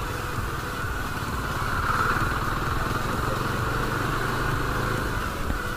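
Bajaj Dominar motorcycle's single-cylinder engine running steadily at low road speed, heard from the rider's seat.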